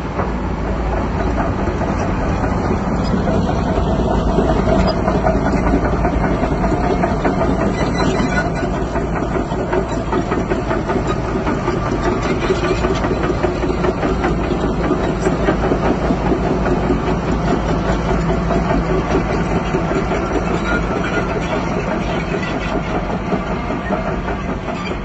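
Bulldozer's diesel engine running steadily with the clatter of its steel crawler tracks, easing off slightly near the end.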